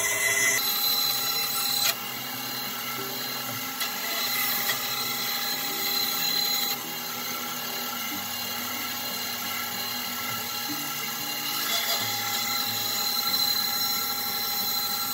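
Bandsaw running, its blade cutting the rough shape of an axe handle out of a wooden board. Steady machine sound with a few held tones, shifting abruptly a couple of times.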